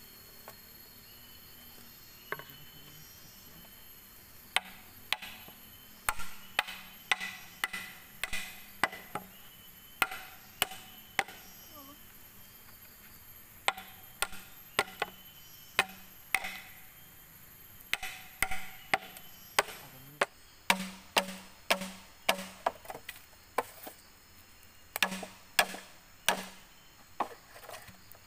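Hollow bamboo being chopped: a long, irregular series of sharp blows, each a crack with a short woody ring. The blows come in clusters of several strikes with brief pauses between them.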